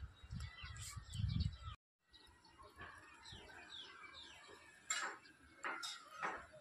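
Small birds chirping: a run of quick, falling chirps with a few louder, sharp calls about five and six seconds in. A low rumble on the microphone fills the first second and a half, then the sound cuts out briefly.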